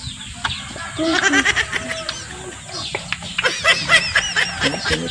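Farmyard poultry and birds calling, a busy run of quick clucks and high chirps starting about a second in and thickening toward the end, alongside close chewing of crisp wax apple.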